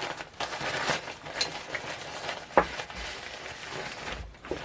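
Paper packing rustling and crinkling as it is unwrapped from a set of small shakers, with one sharp click a little over halfway through.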